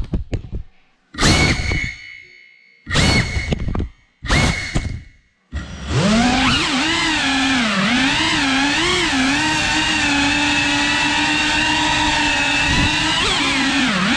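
FPV quadcopter's electric motors and props whining, cutting out at the start and coming back in three short bursts with silent gaps between. About five and a half seconds in they spin back up to a steady high whine whose pitch rises and falls with the throttle.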